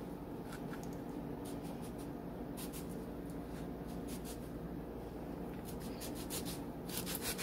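Small kitchen knife sawing through a lemon on a plastic cutting board: short scratchy strokes in little clusters, over a faint steady hum.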